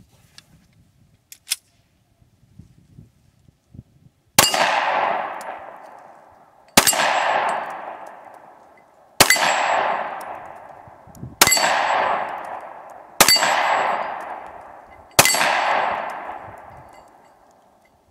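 Six shots from a Smith & Wesson M&P Shield 9mm pistol, starting about four seconds in and coming roughly two seconds apart. Each shot is followed by a steel plate target ringing and dying away over a couple of seconds.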